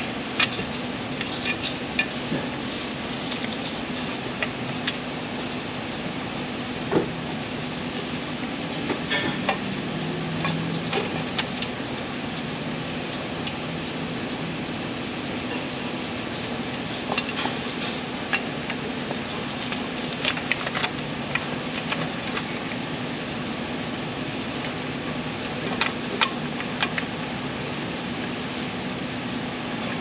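Scattered light metallic clinks and taps as an exhaust manifold and its bolts are handled and fitted against the cylinder head, over a steady background hum.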